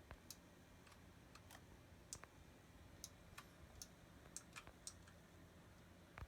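Faint, irregular clicks of a computer keyboard and mouse during PC gaming, about a dozen scattered taps over a low steady hum.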